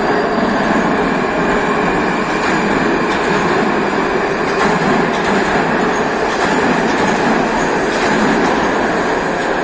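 Metro train departing from the platform and running close past, a loud steady rumble of wheels and traction motors with a few short clicks.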